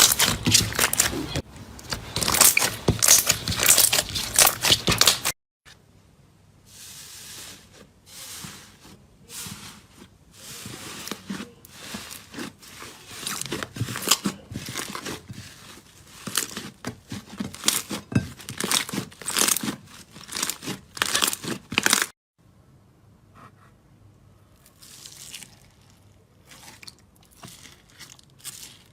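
Slime being squeezed and pressed by hand close to the microphone, giving a dense run of crackling, crunchy pops. The sound is loud at first and cuts abruptly to quieter crackling about five seconds in, with another abrupt cut later on.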